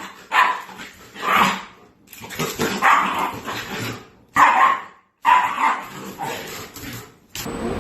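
A dog barking repeatedly, in a series of short, loud barks.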